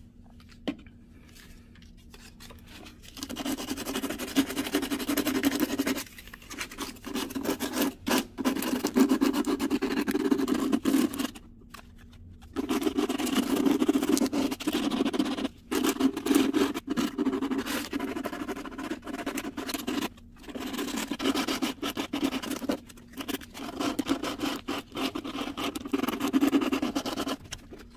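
Sandpaper rubbed by hand over dried papier-mâché, smoothing a sculpted eyeball. Starting about three seconds in, quick back-and-forth strokes come in spells of a few seconds, with short pauses between.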